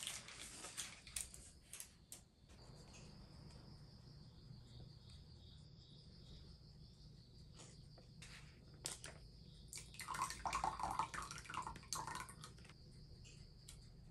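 Crickets chirping in a steady, high, continuous trill, with scattered faint clicks and knocks and a brief louder clatter about ten seconds in.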